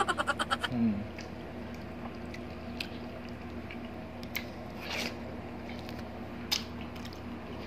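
Close-miked wet eating sounds of watermelon and mango: soft bites, chewing and slurps, heard as scattered short clicks over a low steady hum.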